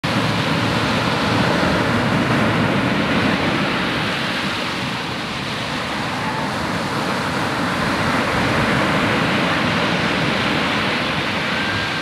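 Sea surf washing onto a sandy beach: a steady rush of breaking waves that eases a little midway and then swells again.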